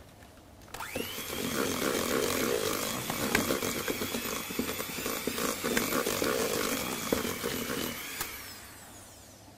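Electric hand mixer starting up about a second in and beating an egg yolk into creamed butter and sugar in a stainless steel bowl, with scattered clicks of the beaters against the bowl. It switches off near the end and whirs down.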